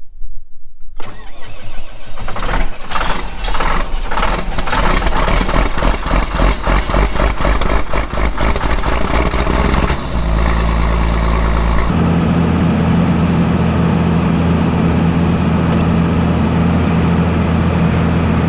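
John Deere diesel tractor engine starting about a second in, running unevenly for several seconds, then settling into a steady run about two-thirds of the way through.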